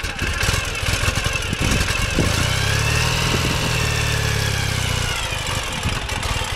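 Ural sidecar motorcycle's air-cooled boxer-twin engine running at low speed as the rig backs up in reverse gear. A deeper steady hum joins for a few seconds in the middle, with a high whine that rises and falls.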